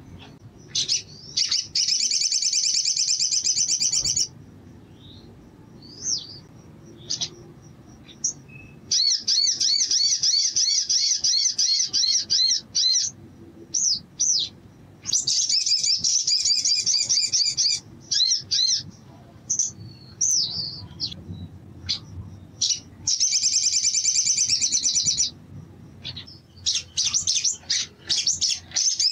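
Olive-backed sunbird singing: five long, very fast, high trills of two to four seconds each, with short sharp chirps between them.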